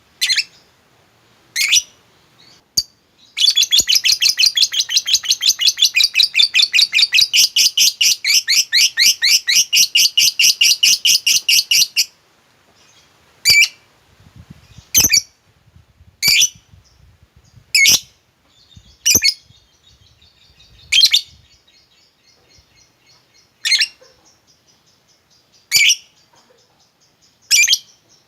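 Lovebird calling: a few sharp chirps, then a long, rapid chattering trill (the 'ngekek') lasting about eight seconds, followed by single sharp chirps every second or two.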